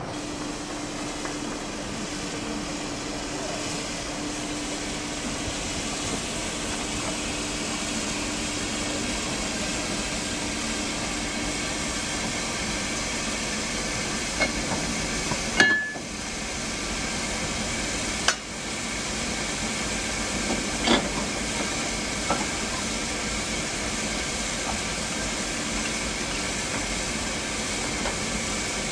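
Isle of Man Steam Railway No. 4, a narrow-gauge Beyer Peacock 2-4-0 tank engine, standing with a steady hiss of steam. A few sharp metallic knocks come in the second half, around the coupling to the carriage.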